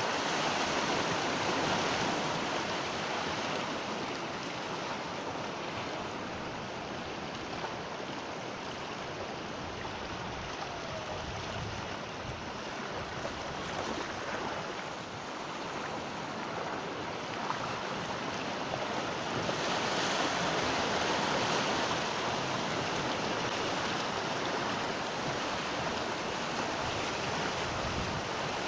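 Sea waves breaking and washing on a shore: a continuous rushing surf that swells around the start and again about two-thirds of the way through, then eases.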